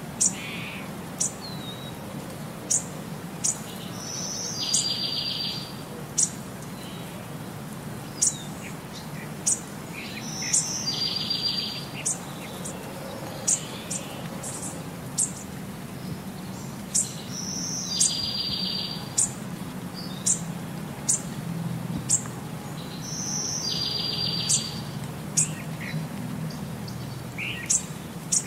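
Birds chirping: short sharp chirps about once a second, with a buzzy trill about a second long every six or seven seconds, over a low steady hum.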